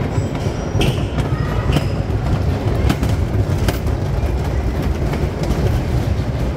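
Electric bumper car rolling over a steel-plate arena floor: a steady low rumble with a few scattered clicks and knocks.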